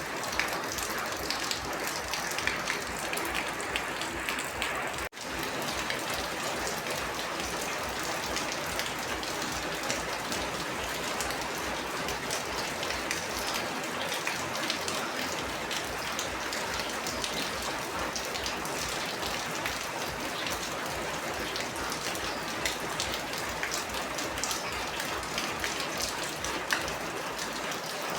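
Steady rain falling, many individual drops pattering on a surface over an even hiss. The sound cuts out for an instant about five seconds in.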